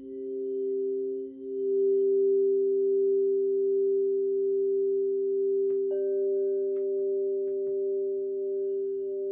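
Crystal singing bowls ringing with several steady, overlapping pure tones that swell about a second and a half in. About six seconds in a bowl is struck, adding a higher tone that pulses near the end, followed by a few faint taps.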